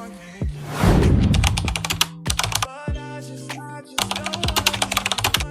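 Hip hop outro music with fast runs of sharp, clicking percussion over held notes.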